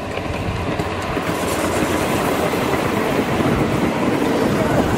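A 7¼-inch gauge miniature steam train with its passenger cars running past close by, wheels and cars rattling quickly on the track, growing steadily louder as it nears.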